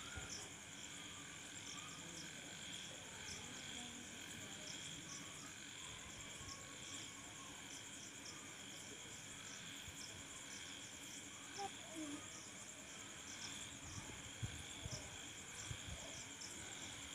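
Faint insects chirring: a steady high-pitched buzz with short chirps repeating about once a second. A few soft thumps come about two-thirds of the way through.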